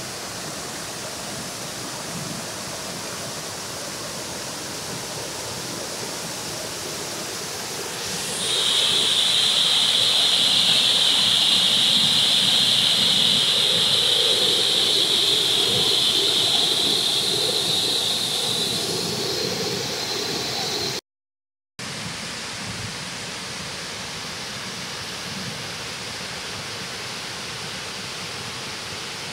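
Floodwater rushing steadily over a low concrete weir on a swollen river, churning into white water below. Partway through, a loud, high, steady buzz comes in over the water and stays for about ten seconds before fading. The sound cuts out briefly near the end.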